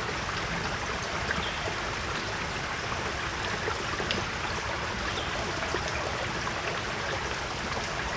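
A forest stream running steadily, with a few faint clicks from gear being handled close by.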